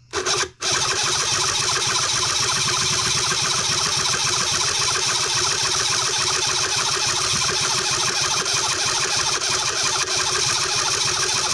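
Electric starter cranking a Cison L4-175 model four-cylinder flathead engine: a short tap, then one long, steady crank. The fuel line is off to clear a flooded engine, and it does not catch.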